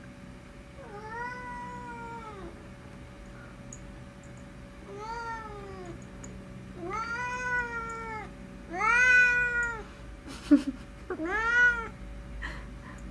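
Pet cat meowing five times in answer to being called, each meow a drawn-out call that rises and then falls in pitch. A short sharp click comes between the last two meows.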